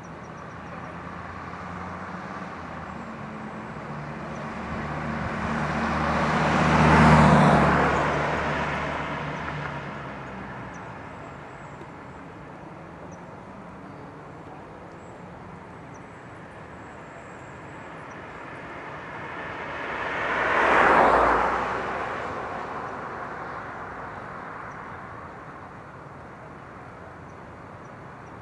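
Two vehicles passing by on a road, one after the other, each swelling up and fading away: the first, about seven seconds in, with a low engine hum under the tyre noise; the second about twenty-one seconds in.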